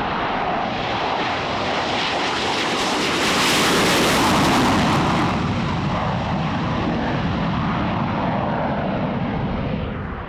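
F/A-18 Hornet's twin General Electric F404 turbofans at full power on takeoff: a loud, rushing jet roar that peaks about four seconds in, then eases off as the jet climbs away and drops near the end.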